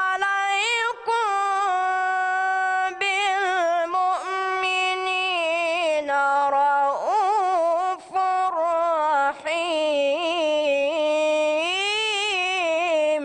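A boy's voice reciting the Quran in the melodic, ornamented tajweed style, drawing out one long phrase with wavering turns and only brief pauses for breath. The voice stops suddenly near the end.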